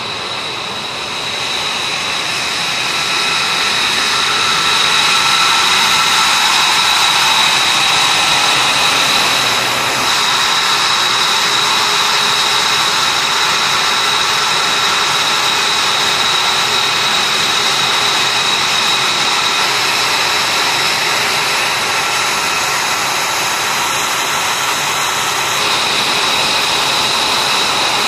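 Twin turbofan engines of an F-22 Raptor running at ground idle: a steady high-pitched whine over a rush of jet noise, growing louder over the first few seconds.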